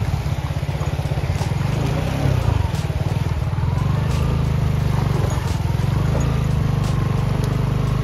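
Suzuki motorcycle engine running steadily at low speed, a dense low pulsing note, as the bike rides slowly over rough ground.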